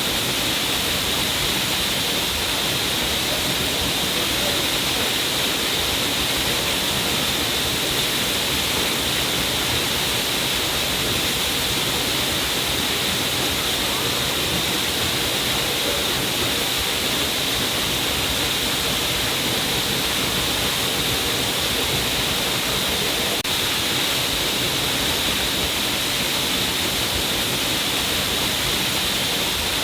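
Stream of water falling down a cliff face, a steady, even rush of splashing water.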